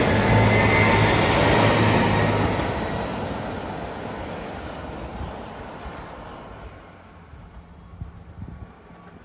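Diesel railcar train running away from the listener, a steady low engine hum over its rumble. The hum drops out about two and a half seconds in, and the rumble then fades steadily into the distance.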